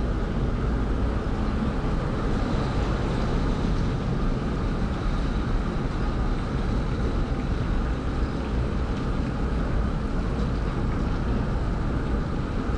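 Steady engine noise of a boat hoist holding a fishing boat up in its slings.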